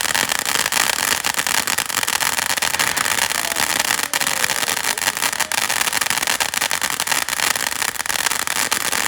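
A lit firework burning with a steady, dense crackling hiss.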